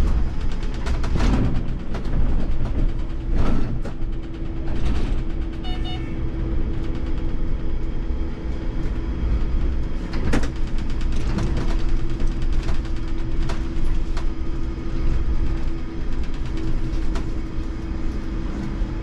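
Cab interior of an IMC Hess Lightram 19 DC trolleybus rolling slowly: a steady hum over a low rumble, with scattered clicks and rattles and a brief high beeping about six seconds in.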